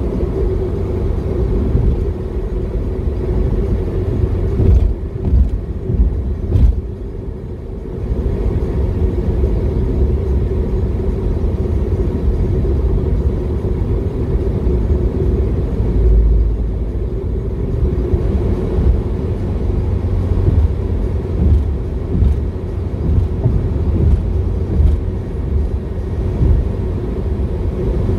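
Car driving on the road: a steady low rumble of engine and tyre noise with a constant hum, and a few louder thumps about five to seven seconds in.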